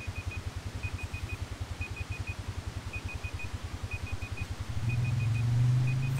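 A digital timer alarm beeping in quick groups of four, about once a second, over the low, evenly pulsing rumble of an idling engine. The rumble turns into a steadier, louder hum about five seconds in.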